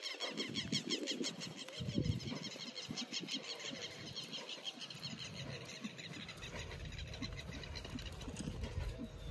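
A horse's hooves thudding dully on soft arena sand as it circles on the lunge line, under a rapid, even, high chattering in the background that fades out about halfway through. A low rumble fills the second half.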